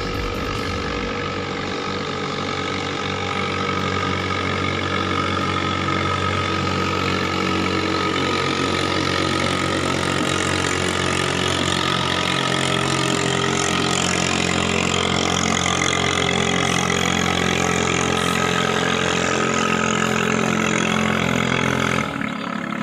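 A katinting longtail boat engine running steadily, getting a little louder about five seconds in; the sound drops away abruptly near the end.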